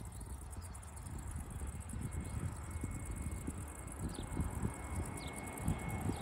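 Distant jet airliner on approach, heard as a faint thin whine that comes in about two seconds in and slowly grows, under a gusty low rumble of wind on the microphone. Short falling chirps sound about once a second.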